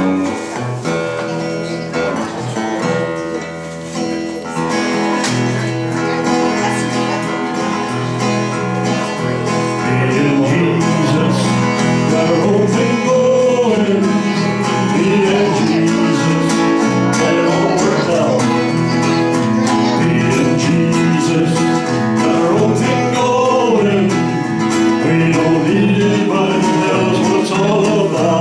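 Small country band playing live: two acoustic guitars strummed over an electric bass. A man's singing voice comes in about ten seconds in and the music gets louder.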